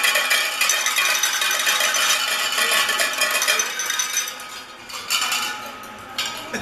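Spectators shaking handheld noisemakers in a dense, fast rattle, cheering a goal. The rattle fades out about four seconds in, leaving a few light clinks.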